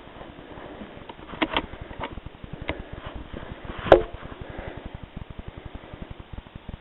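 Faint clicks and knocks from a night-vision-scoped rifle being handled and moved, then one sharp, much louder knock about four seconds in. Under it runs a fast, faint low ticking.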